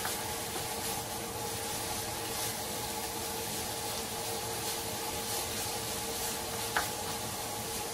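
Ground pork frying in a pan, a steady sizzling hiss, with a spatula stirring it and one sharp tap of the spatula on the pan near the end. A steady low hum runs underneath.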